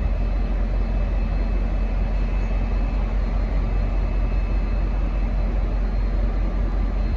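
V/Line N class diesel-electric locomotive idling at the platform: a steady low rumble with a faint, constant high whine above it.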